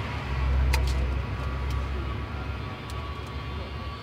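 Low rumble of a road vehicle passing close by, swelling about half a second in and then easing to a steady drone. A metal serving spoon clicks once or twice against a steel rice tray.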